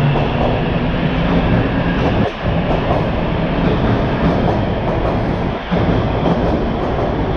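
TTC T1 subway train running past the platform, a steady loud rumble of wheels on rail and traction motors, dipping briefly twice as the train goes by.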